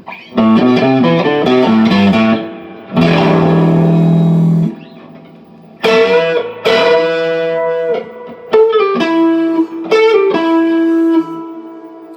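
Electric guitar, a Les Paul copy with Lace Hemi Nitro humbuckers, played through the neck pickup coil-split to single-coil. It plays a quick run of notes, then a held chord, then a lick with bent notes that ends on a long sustained note.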